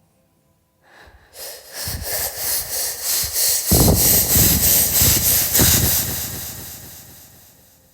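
A person making a loud breathy hissing and blowing noise right into the microphone as a mouth sound effect, with gusts of breath buffeting the mic. It starts about a second in, is loudest in the middle, and fades out near the end.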